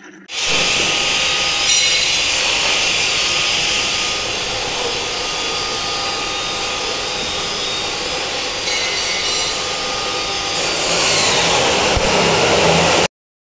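High-speed friction feeder conveyor running, its feed belts pulling pouch labels off the stack one at a time onto the conveyor belt. The sound is a steady, mostly high-pitched mechanical noise with faint steady tones; it starts just after the beginning and cuts off suddenly near the end.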